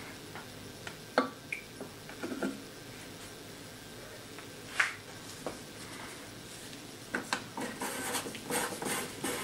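Scattered small clicks and taps of a plastic fluid bottle and a master cylinder reservoir being handled while the clutch reservoir is topped up, with a quicker run of clicks near the end as the hand works at the reservoir.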